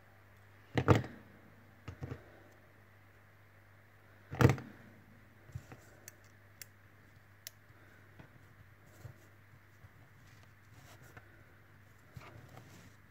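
Thin craft wire and a small wooden template being handled on a cutting mat: two sharp knocks about a second and four and a half seconds in, a softer one in between, then scattered faint clicks and taps as the wire is worked into the template.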